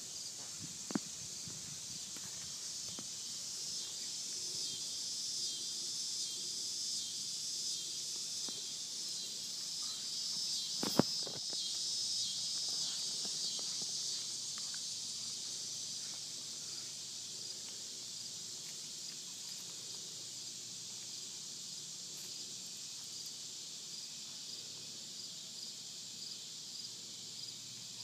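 Cicada buzzing steadily in a high, fast-pulsing drone that swells over the first dozen seconds and slowly eases off. Two sharp knocks cut through, about a second in and a louder one about eleven seconds in.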